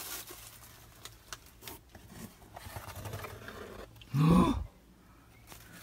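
Faint rustling and small scattered clicks of handling as things are moved about in a cluttered storage space, with no bird calls. A voice says one short syllable about four seconds in.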